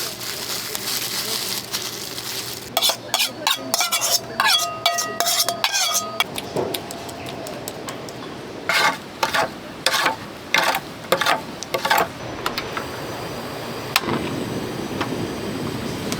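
Metal cooking utensils and dishes clinking and scraping, in two clusters of sharp taps, some of them ringing briefly. A steady hiss comes in near the end.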